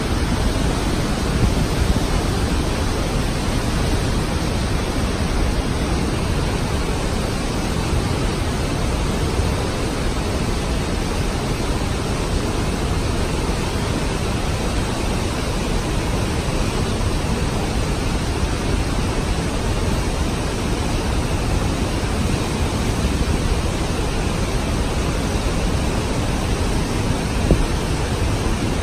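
Fast river rushing through rapids in a rock gorge: a steady, unbroken rush of water noise with no pauses or changes.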